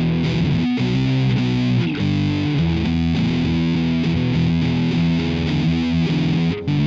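Background music led by a distorted electric guitar, with a short break near the end.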